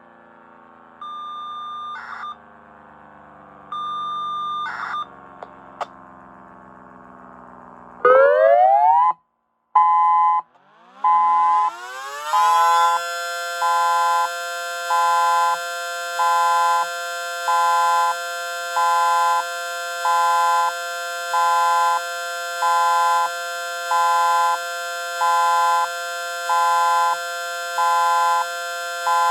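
Two short FSK radio data tones, then an electronic siren sweeps up and settles into a pulsed steady signal, beeping on and off about every 1.3 seconds. Beneath it a mechanical siren winds up from about ten seconds in and holds a steady alert tone.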